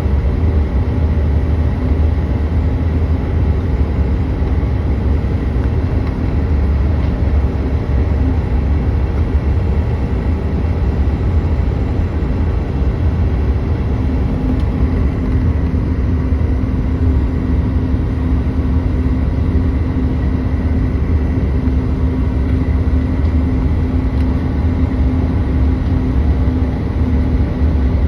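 Steady jet noise of an American Eagle CRJ200 regional jet: a loud low rumble with several steady engine tones, and another steady hum joining about halfway through.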